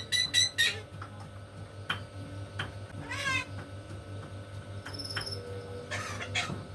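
Captive jalak starling calling: a quick run of repeated whistled notes at the start, then a wavering, meow-like call about three seconds in and a short high whistle near five seconds, with a few sharp clicks between.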